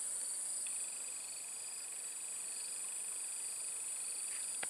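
Steady chorus of insects, a high continuous buzz with a fainter pulsing trill beneath it that drops out briefly near the start.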